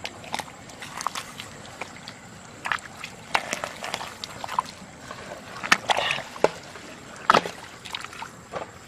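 Water sloshing and splashing in short, irregular bursts, about a dozen over several seconds.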